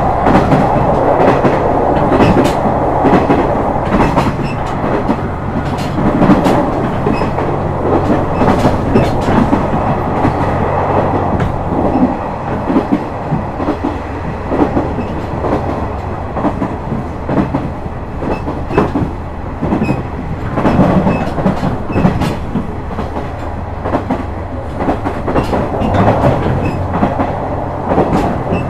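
KiHa 126 series diesel railcar running along the line: a steady diesel engine drone, with the wheels clicking rhythmically over rail joints.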